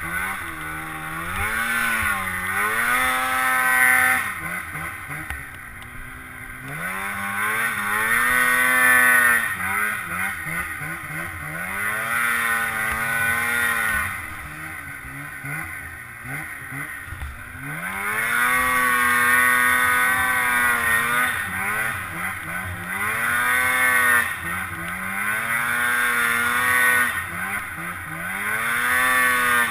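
700 snowmobile engine under throttle in deep snow, revving up and down over and over, its pitch climbing and then dropping every few seconds.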